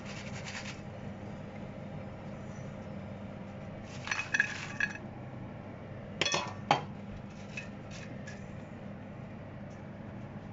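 Metal wire strainer and kitchen utensils clinking against the pan and plate in a few short knocks, in two groups about four and six seconds in, over a steady low hum.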